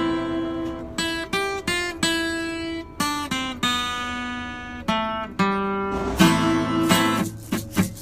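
Acoustic guitar playing a song's instrumental introduction: single picked notes ring out one after another, and strummed chords resume about six seconds in.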